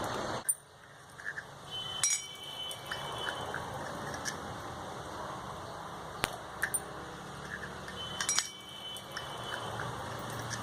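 A few sharp, light metallic clicks and clinks, spaced seconds apart, over a steady background hiss.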